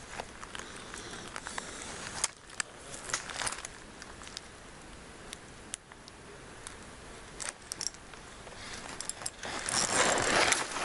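Light rustling and scattered sharp clicks from handling fishing gear among branches, rising to a louder rustle near the end.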